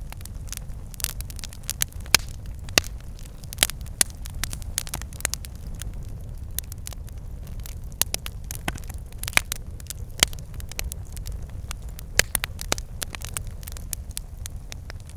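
Campfire burning: irregular sharp crackles and pops of burning wood over a steady low rumble of the flames.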